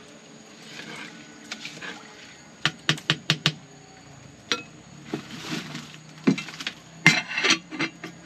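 Cooking utensils knocking and clinking against a pot: a quick run of about five sharp knocks about three seconds in, scattered single knocks after, and a denser cluster near the end.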